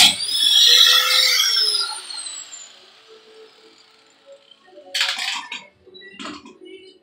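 Angle grinder winding down after its cut through the quarter-panel sheet metal: the grinding stops suddenly, and the motor's whine rises briefly, then falls in pitch and fades over about two seconds. A few knocks follow around five seconds in.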